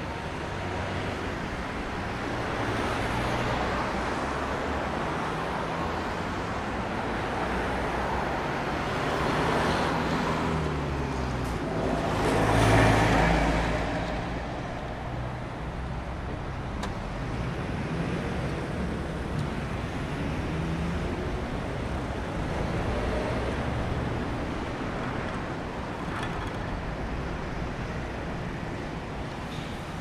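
Road traffic at a city junction: a steady wash of cars driving past, swelling every few seconds as vehicles go by close. The loudest pass, heavy in engine rumble, comes a little before halfway.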